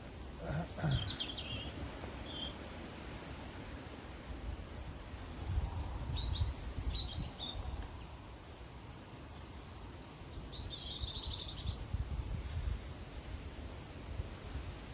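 Small birds chirping in short phrases several times over a steady high-pitched insect buzz, with a low rumble of wind on the microphone.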